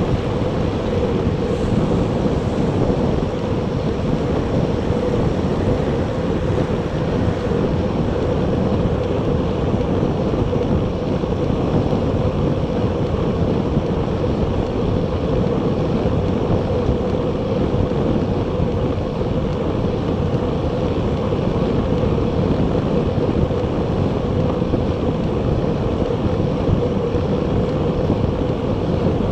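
Steady rushing wind noise over a Garmin VIRB action camera's microphone on a moving recumbent bicycle, mixed with road noise from the ride.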